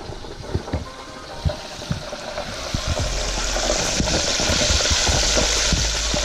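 Batter-coated fish pieces frying in a deep fryer's hot oil: a steady sizzle with scattered crackling pops, growing louder about two and a half seconds in.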